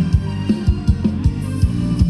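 Thai ramwong dance music from a live band: a steady fast drum beat of about four to five strokes a second over bass and guitar.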